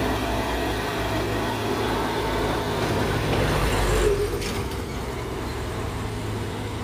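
Diesel trucks passing close by with their engines running and tyre noise on the road. The sound peaks about four seconds in as the second truck goes past, then eases.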